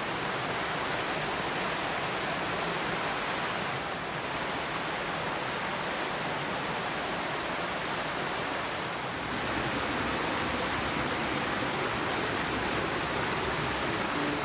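Steady rush of flowing water with no music or voice over it, shifting slightly in level about four and nine seconds in.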